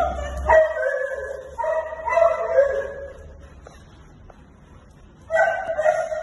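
Samoyed dog vocalising in drawn-out, pitch-sliding calls: one long run from about half a second to three seconds in, and another near the end.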